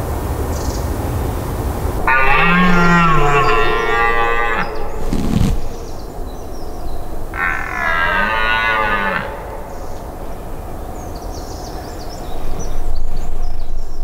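Red deer stag roaring in the rut: two long, hoarse roars a few seconds apart, each lasting about two seconds, with a low thump between them.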